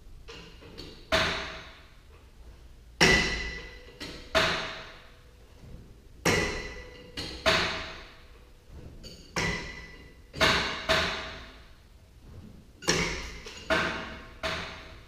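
Steel striking steel at a garage door's torsion spring hardware: about a dozen sharp metallic clanks at irregular intervals, several in quick pairs, each ringing briefly before dying away.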